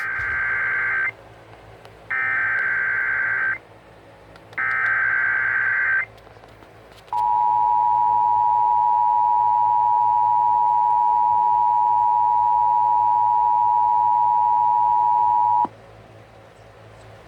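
Emergency Alert System tones as broadcast on radio. First come three bursts of the SAME digital header, a warbling data screech each about a second and a half long. After a short pause, the steady two-tone EAS attention signal plays for about eight and a half seconds, then cuts off sharply.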